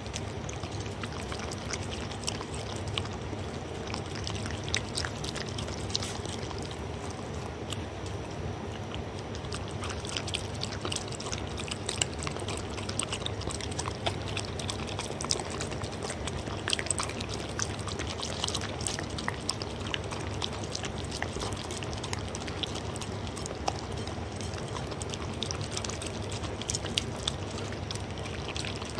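A dog lapping and chewing soupy food from a bowl, close to the microphone: continual wet slurps, smacks and small clicks of tongue and jaw.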